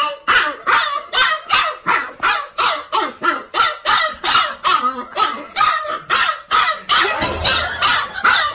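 Husky puppy barking over and over in short, high yaps, about three or four a second, without a break.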